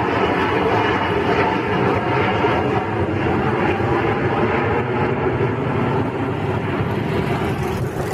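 Twin-engine jet airliner passing overhead and flying away, its turbofan engines making a steady, dense rumbling roar.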